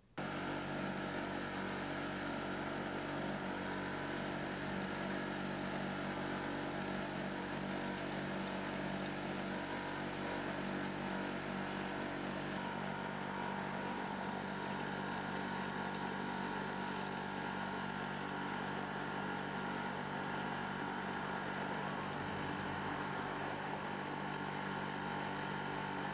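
The engine of an asphalt crack-filling machine running steadily while it pumps hot sealant through its hose into a pavement crack; its hum changes slightly about halfway through.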